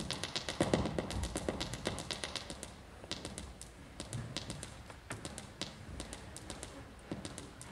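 Sharp, irregular tapping and clicking, several a second, with a few duller thuds mixed in. It is louder for the first couple of seconds, then fainter.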